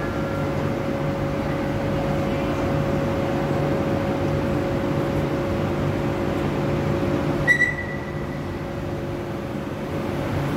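Stationary Renfe Cercanías series 465 (Civia) electric train at an underground platform: a steady hum from its equipment, with a steady tone over it. About seven and a half seconds in there is a sharp click and a short high beep, and the hum drops slightly after it.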